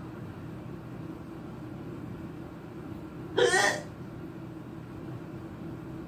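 A woman hiccups once, loudly, a little over three seconds in, over a steady low background hum.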